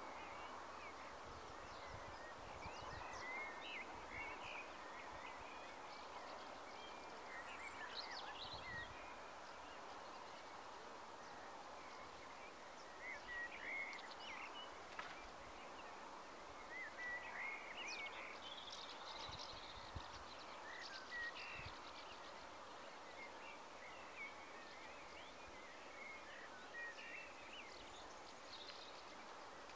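Faint outdoor ambience: small birds calling with scattered short chirps and quick twittering sweeps, over a steady low hiss. A few soft low thumps come and go.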